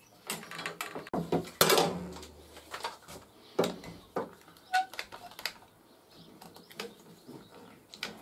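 Irregular clicks and knocks of a Quick-Grip one-handed bar clamp being fitted and squeezed tight by hand, with a short rustle about two seconds in.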